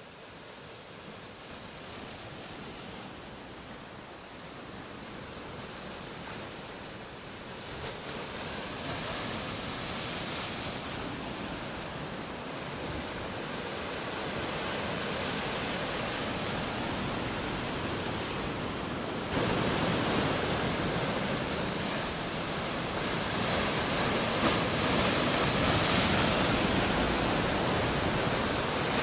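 Sea waves washing on a shore, a steady rushing surf that fades in from quiet and swells slowly, stepping up abruptly in loudness about two-thirds of the way through.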